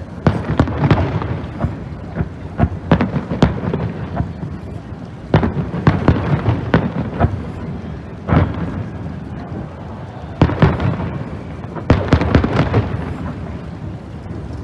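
Aerial fireworks going off in a rapid series of loud bangs and crackles, in clusters every couple of seconds, with a rumbling echo between them.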